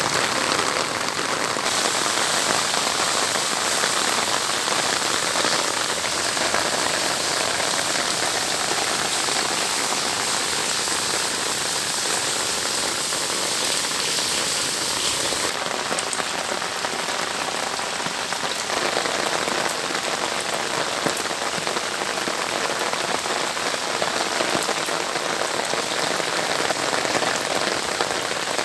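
Steady rain falling on surfaces, a dense even hiss of drops whose character shifts abruptly a few times.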